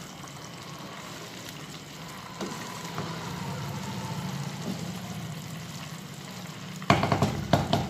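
Radish and spinach with a little added water simmering and sizzling in a pan while a wooden spatula stirs through it. A short loud clatter of cookware comes near the end.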